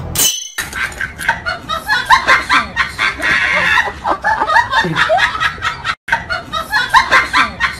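Giggling and snickering in quick short bursts, running on for several seconds with a brief break about six seconds in.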